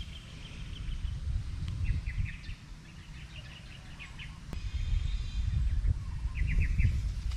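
Birds chirping in short, quick runs of notes, several times, over a low uneven rumble of wind on the microphone.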